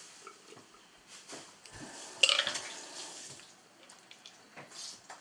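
Small clicks, taps and rustles of eating and handling tableware at a table, with a louder clatter about two seconds in.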